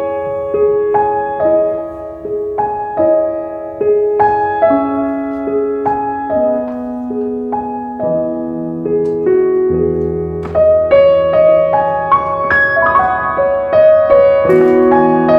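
Soft background piano music: a slow melody of separate notes, each ringing and then fading, with deeper bass notes coming in about ten seconds in.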